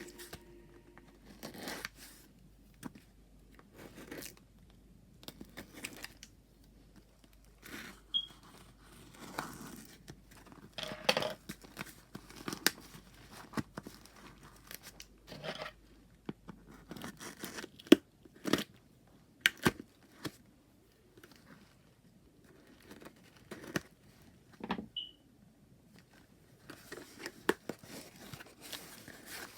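Packaging being torn open and crinkled by hand, in irregular rustling spurts with scattered sharp clicks and taps.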